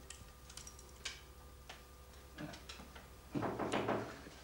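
Light, irregular clicks and ticks of small metal and wire parts of a homemade contraption being handled, with a sharper click about a second in and a louder spell of handling noise near the end.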